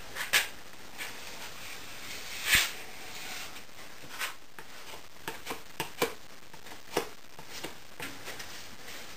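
Workbench handling noises: scattered light knocks, taps and clicks as pegboard strips and other small pieces are picked up and set down on a plywood panel. The loudest knock comes about two and a half seconds in, and a quick run of sharper clicks follows between five and seven seconds.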